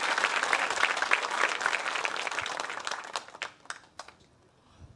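Audience applauding in a theatre. The dense clapping thins to a few scattered claps about three seconds in and dies away about a second later.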